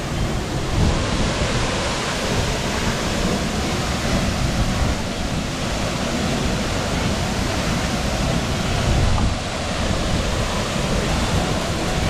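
Loud, steady rush of a waterfall.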